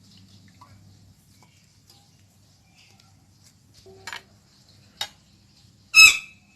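Kitchen utensils being handled over a faint steady hum: a couple of light clicks, then, about six seconds in, one loud clank that rings briefly, like a metal dish or bowl set down.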